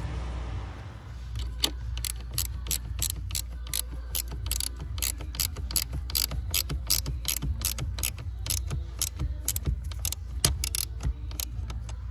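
Small ratchet spanner clicking, about three clicks a second, as it tightens the nut on a car battery's negative terminal clamp, over a steady low hum.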